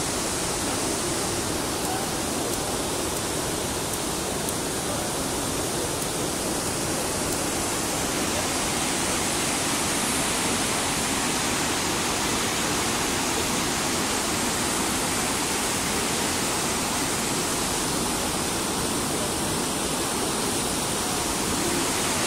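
River rapids: whitewater rushing and churning over rocks in a steady, unbroken wash of noise.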